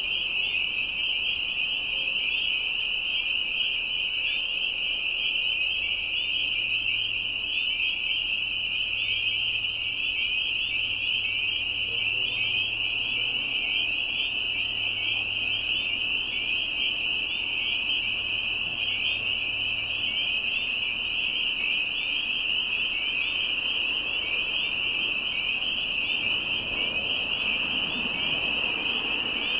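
Dense chorus of spring peepers calling from a wetland: many high, short rising peeps overlapping without a break.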